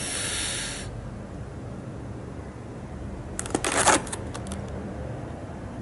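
Hands handling papers and a clear plastic blister pack: a short rustle at first, then a brief crackle of the stiff plastic about three and a half seconds in.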